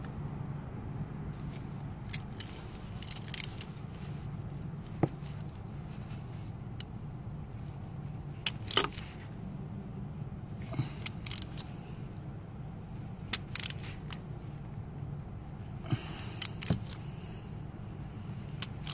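Hand tools clicking and clinking against metal in short, scattered bursts as a ratchet and deep socket work at the glow plugs of a Sprinter's diesel engine, over a steady low hum.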